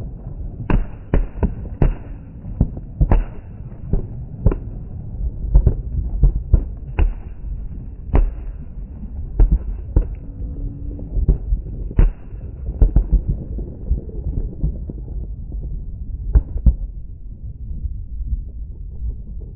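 Aerial fireworks exploding: a rapid, irregular string of sharp bangs, each with a short echoing tail, over a continuous low rumble of many more fireworks going off further away. The bangs come thick and fast for about the first dozen seconds, then thin out to an occasional one.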